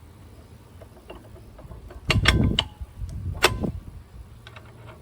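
Mini excavator's engine running with a low steady hum, with two loud metal clanks, one about two seconds in and a shorter one about three and a half seconds in.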